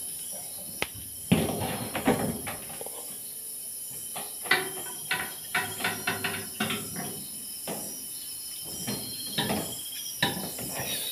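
Crickets and other night insects chirring steadily, with scattered sharp knocks and thumps, a quick run of them between about four and seven seconds in.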